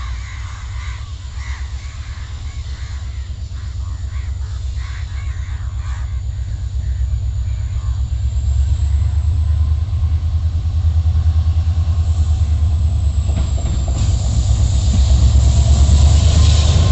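Indian Railways EMD diesel-electric locomotive running with a deep engine throb that grows steadily louder as the train comes closer. Wheel and rail noise swells near the end.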